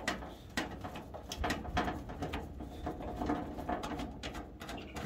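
Small, irregular clicks and rattles of a screwdriver and loose wires being worked at the screw terminals of an evaporative cooler's control board as the ground wires are unscrewed.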